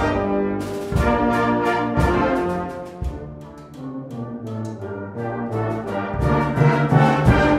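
Background music: a brass band playing held chords, softer in the middle and swelling louder near the end.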